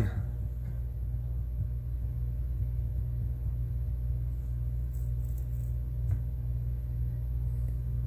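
Steady low hum of room background noise, with a faint click about six seconds in.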